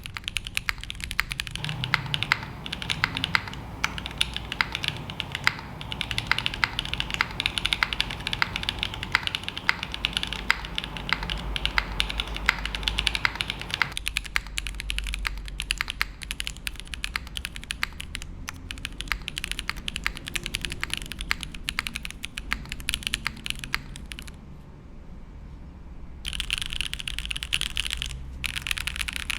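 Continuous fast typing on a custom mechanical keyboard with lubed linear switches (TKD v1 stems in Cherry HG Black housings with 63.5 g springs), GMK Tako doubleshot ABS keycaps and an aluminium plate with no foam. The keys clack in dense runs, with a brief pause about 25 seconds in.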